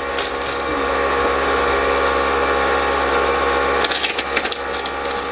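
A pneumatic tool, fed by a small air compressor, running steadily while it breaks up a plywood floor, with bursts of wood cracking and splintering at the start and again about four seconds in.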